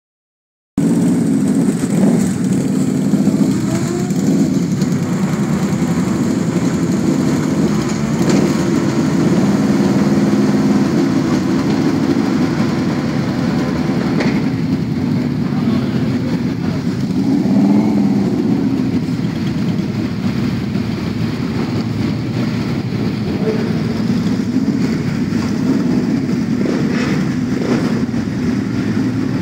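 Motorcycle engines idling together at close range, a steady low running sound from a pack of stopped bikes including a cruiser right beside the microphone. About 18 seconds in, an engine's pitch rises and falls briefly.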